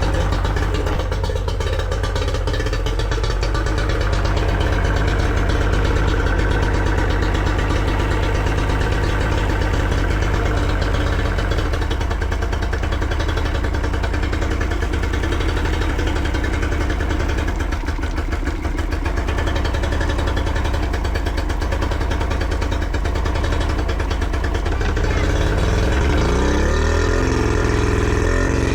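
Yamaha 40 hp two-stroke outboard motor running at idle, with its pitch rising near the end as it takes some throttle. The engine has the fault the owner describes: it runs a little rough at idle and bogs down or stalls under throttle or load.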